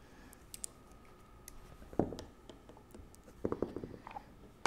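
Light clicks and small metal taps of a hand tool working the water pump cover screws out of a Mercury 2.5 hp outboard's lower unit. A sharper click comes about two seconds in, and a quick run of clicks follows near the end.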